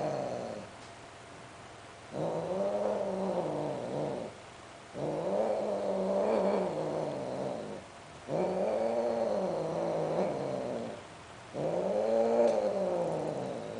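A domestic cat yowling in long, drawn-out caterwauls, each rising and then falling in pitch. One call ends shortly after the start, and four more follow, each about two and a half seconds long with short pauses between them. The uploader takes the very loud calling for the sound of sterilized cats mating.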